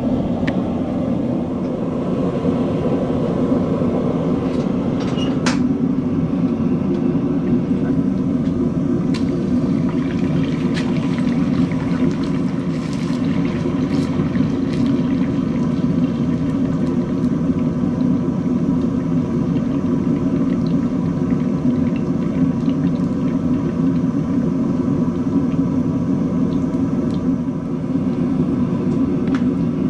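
A forge running with a steady rushing noise while a forged steel axe head is heated to critical temperature for hardening, with a few faint sharp ticks through it.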